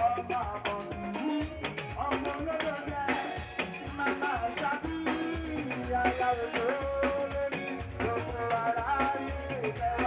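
Upbeat party music with a steady drum beat and a melody line, with singing in it.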